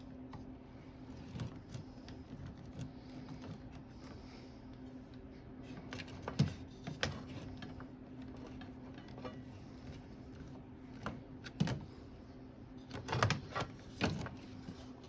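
Scattered light clicks and knocks of aluminum window parts and screws being handled during reassembly, over a steady low hum.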